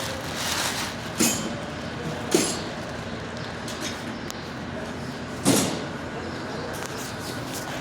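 Three sharp knocks over a steady background hiss: one about a second in, another a second later, and the loudest about five and a half seconds in.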